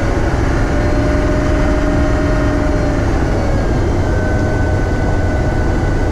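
Humvee's 6.5-litre V8 diesel and drivetrain running steadily at road speed: a deep, even drone with faint whining tones above it, one fading about halfway through and a higher one coming in near the end.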